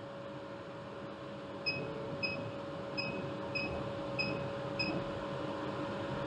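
Six short, high electronic beeps about 0.6 s apart from a CO2 laser engraver's control panel as its bed up/down button is pressed, over a steady machine hum.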